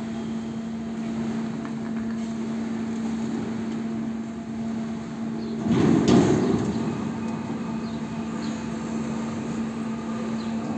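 Steady electric hum of powered ferry-terminal machinery running as the boom barrier at the vehicle ramp is operated and raised, with a loud rumbling clatter about six seconds in.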